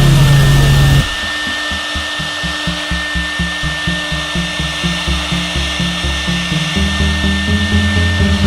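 A CNC wood router running, its spindle giving a steady high whine. A loud low hum cuts off about a second in, and a low pulsing rhythm follows.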